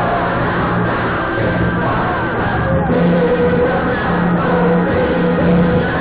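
Musical-theatre song: voices singing held and gliding notes over a band accompaniment, in a dull, low-fidelity recording with no top end.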